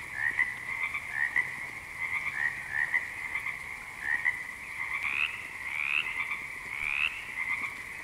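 Frogs croaking: a constant high-pitched trill with short upward-sliding calls about once a second. From about five seconds in, the calls grow longer and rise higher.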